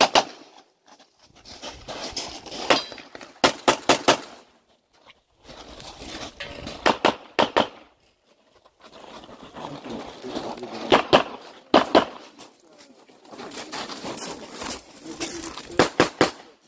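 Glock 34 9mm pistol shots fired in about seven quick strings of one to four shots, with pauses of a second or more between strings, as the shooter moves through a practical-shooting stage.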